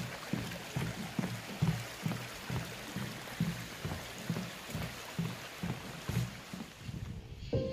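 Mountain stream running over rocks, a steady rush of water, with footsteps on a paved path about twice a second.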